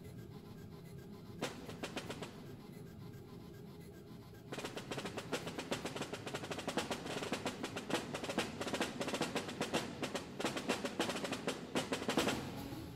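Snare drum played with sticks: a few scattered strokes at first, then from about four and a half seconds in a fast, dense run of strokes that keeps going.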